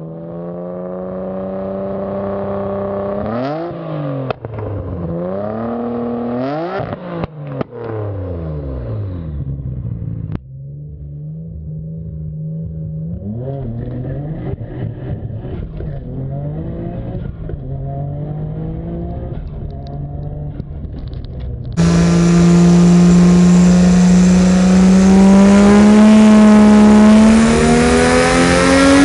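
Nissan Skyline R34 GT-R's straight-six engine in three cut-together clips. First it is revved up and down from idle, with a few sharp cracks. Then it idles with short blips of the throttle, and in the last clip it runs louder, pulling hard with a steadily rising pitch under acceleration.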